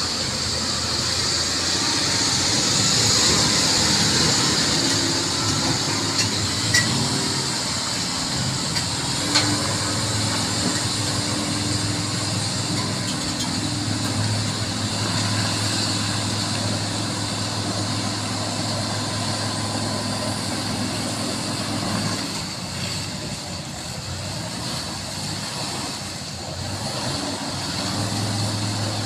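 Diesel engine of a loaded light dump truck running at low, steady revs as it crawls along, its low hum growing stronger about a third of the way in, under a steady high hiss. Two sharp knocks come a few seconds in.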